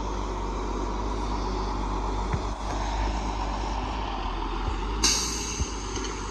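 Self-loading log truck's diesel engine running steadily while the loader works, with a few faint knocks. About five seconds in, a sudden short hiss of released compressed air.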